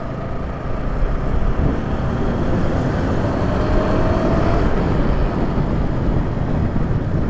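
Motorcycle on the move: engine running under a steady rush of wind noise on the microphone, with an engine note rising from about three seconds in as the bike speeds up.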